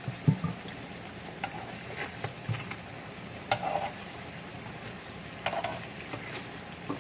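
Bread pieces sizzling in hot cooking oil in a frying pan, stirred and turned with a spoon that knocks and scrapes against the pan every second or so.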